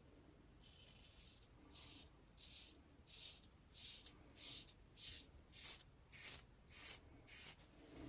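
A 3D-printed plastic safety razor scraping through four days of stubble: about a dozen faint, short, crunchy strokes, one every half second or so.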